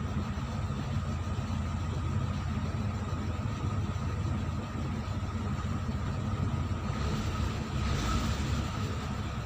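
Lada Granta engine running steadily at idle, recorded for a knock that the owner puts down to the camshaft.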